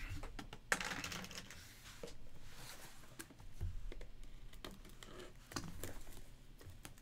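Plastic shrink wrap being slit and peeled off a cardboard trading-card hobby box: crinkling with scattered small taps and clicks.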